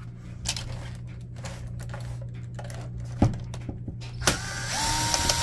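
Electric screwdriver backing out a screw from a printer's main board. A couple of sharp clicks and knocks come first, then near the end the motor spins up and runs with a steady whine.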